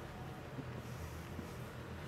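Quiet room tone: a steady low hum with a couple of faint soft ticks.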